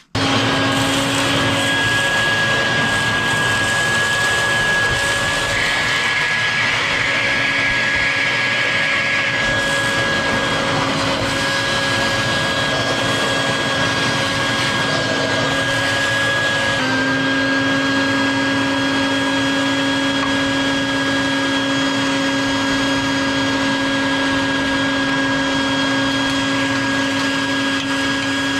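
Shop vacuum switched on and running steadily with a constant motor whine, sucking sand out from around a truck's frame rail. A rougher rush joins it for a few seconds early on, and its tone shifts slightly about 17 seconds in.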